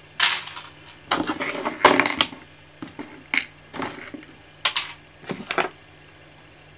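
Broken keyboard plastic pieces and small screws clattering and rattling as they are picked up and set down on a desk: a string of about ten sharp knocks and rattles, then it stops.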